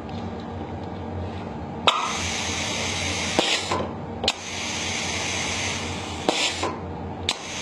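Compressed air hissing out through the silencer speed controllers in the exhaust ports of a 5/2 double-pilot pneumatic valve as it drives a double-acting cylinder. The valve shifts with a sharp click four times, from about two seconds in, and a spell of hiss follows each shift. The exhaust is throttled by the speed controllers, which sets how fast the cylinder strokes.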